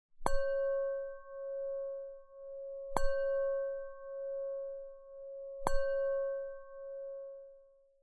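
A bell-like chime struck three times, about two and a half seconds apart, each tone ringing on and fading slowly with a gentle pulsing waver: a countdown chime, one strike per number.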